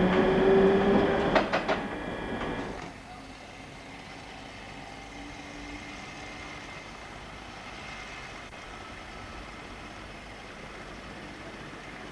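Munich tram in motion: the motors whine steadily and the wheels clack a few times over rail joints about a second and a half in. About three seconds in the sound drops abruptly to a much quieter, even running noise as a tram comes along the track.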